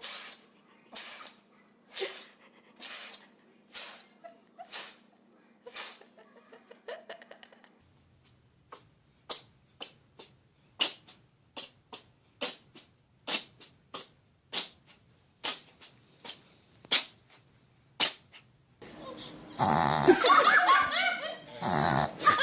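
A pet sneezing over and over in short, sharp bursts, about one a second at first and then in a faster run of about two a second. Near the end, loud human laughter breaks in.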